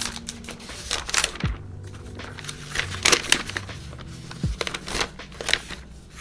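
Crinkling and crackling of a thin protective wrap being slid off a laptop lid by hand, a string of short sharp rustles, over soft background music.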